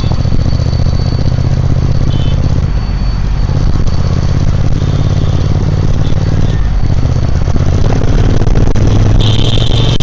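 Triumph Speed Twin 1200's parallel-twin engine and exhaust running loud and steady, its note stepping to a new pitch about three and a half and six and a half seconds in. A high whine joins near the end.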